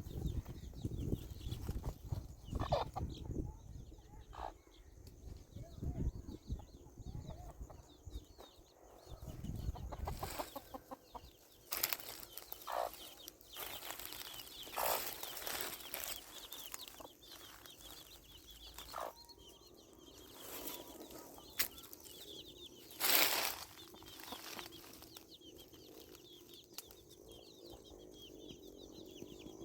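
A chicken clucking, among scattered knocks and scrapes, the loudest a little past the middle.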